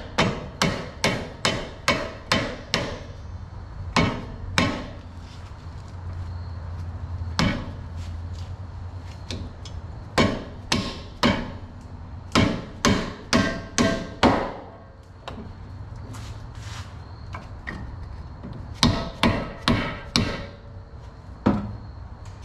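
Hammer striking vice grips clamped onto a worn upper ball joint, knocking it out of the control arm; the joint is so loose it comes out without a press. Sharp metal-on-metal blows in quick runs of about three a second, with pauses between the runs.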